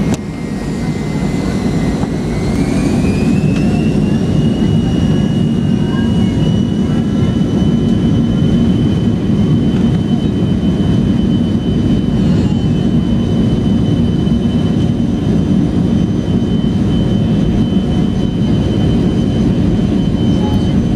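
Jet airliner engines heard from inside the cabin during the takeoff roll, spooling up to takeoff thrust. A thin whine rises in pitch about two seconds in and then holds steady over a loud, even low rumble.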